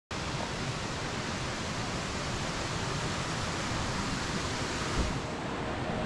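Steady rushing of a tall waterfall, starting abruptly. Near the end there is a soft low thump, the rush thins, and music begins to fade in.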